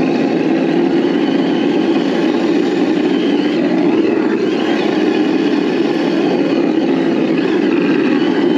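Simulated engine sound from an ESS-Dual sound unit in a Traxxas TRX-4 Bronco RC crawler, running steadily as the truck drives, with a couple of brief rises in pitch a few seconds in.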